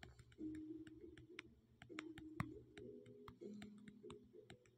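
Faint, irregular clicking, a few clicks a second, over a low steady hum.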